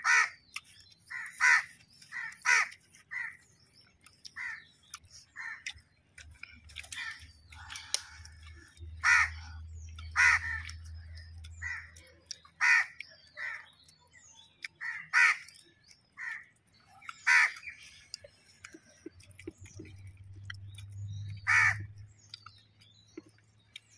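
Crows cawing over and over, short harsh calls about one every second, thinning out near the end. A low steady hum sits underneath for a few seconds in the middle and again near the end.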